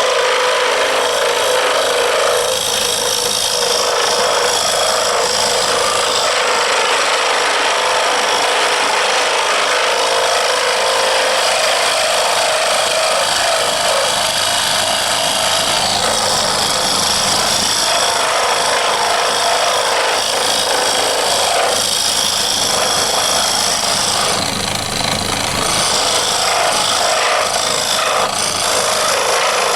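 Lathe running with a cutting tool scraping against the spinning knife-handle blank: a steady motor hum under a continuous rasping that grows and eases a few times as the tool works along the handle.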